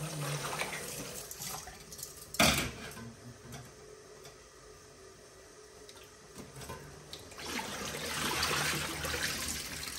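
Tap water running into a steel bowl in a stainless steel sink while fish pieces are rinsed by hand, with one sharp knock about two and a half seconds in. From about seven and a half seconds the water rushes louder as the bowl is tipped and poured out into the sink.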